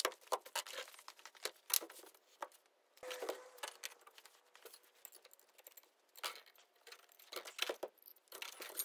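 Irregular clinks and rattles of steel wire tines and metal brackets being handled and set down on a wooden bench, with a faint brief ring just after the first few seconds.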